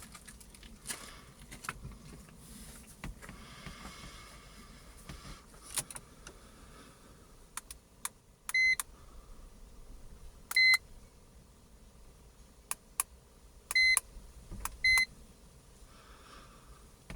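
Handheld iCarsoft LR V2.0 scan tool being operated: scattered soft button clicks, then four short, high, steady beeps spread over the second half.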